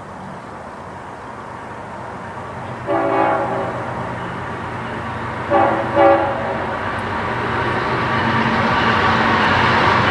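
Approaching train sounding its horn: one blast about three seconds in, then two short blasts a couple of seconds later. Under it the rumble of the train grows steadily louder as it draws near.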